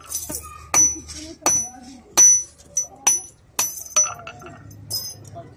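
Hand hammer striking metal on a small steel anvil disc, about eight sharp, irregularly spaced blows, each with a brief high ring, while a buffalo chain's links and hook are hammered into shape.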